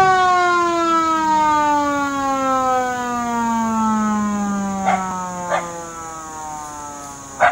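Mechanical police siren winding down, one long tone falling slowly and steadily in pitch as it fades. Three short knocks come in the second half.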